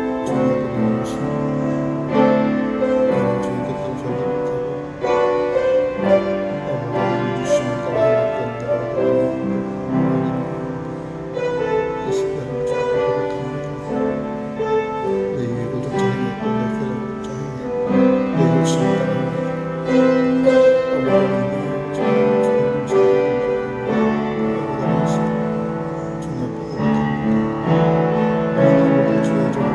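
Slow piano music, held chords and a melody moving every second or two without a break.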